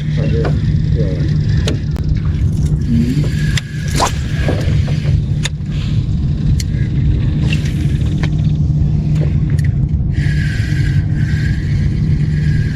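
A boat's motor runs with a steady low hum, while scattered clicks and knocks of handling sound over it. Near the end come two stretches of hiss.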